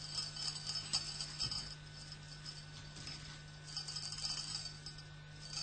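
Faint jingling rattle that comes and goes in clusters, over a steady low hum.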